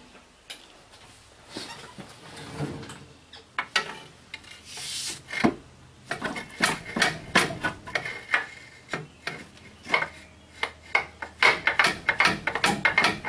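Hand work on a truck's transmission cooler line fitting: metal rubbing, scraping and clicking as the line is worked at after its spring clip is removed. The clicks are sparse at first and come quickly in the last half.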